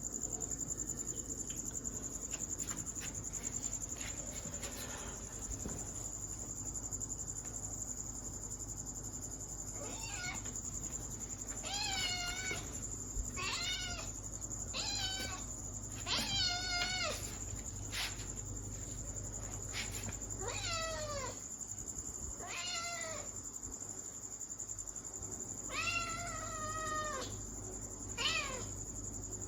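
Kitten meowing again and again: short, high, wavering meows about every second or two, starting about a third of the way in after a stretch of only faint clicks. A steady, high, thin whine, like a cricket, runs underneath throughout.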